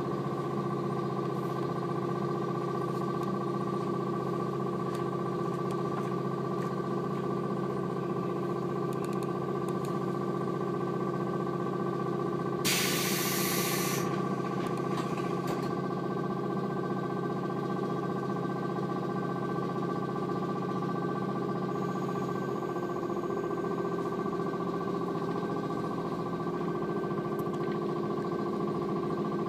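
Steady multi-tone hum of a stationary JR 115-series electric train, heard from inside the carriage with the doors shut, with a short burst of compressed-air hiss about 13 seconds in.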